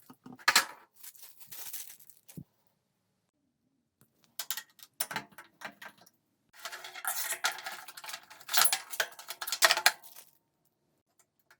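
Clinks and rattles of metal parts and fasteners being handled during assembly of a flat-pack table, with a longer stretch of rustling and scraping about two-thirds of the way in. The sounds come in short bursts broken by dead-silent gaps.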